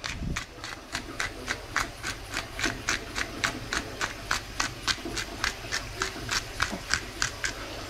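Hand-twisted pepper grinder grinding peppercorns: an even series of crisp grinding clicks, about three to four a second, that stops shortly before the end.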